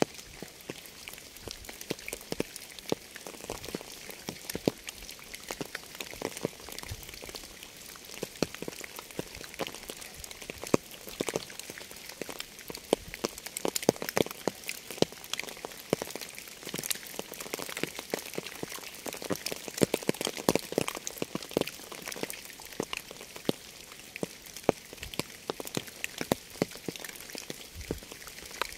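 Steady rain: a continuous high hiss of falling rain with many close, sharp drops ticking irregularly on a surface.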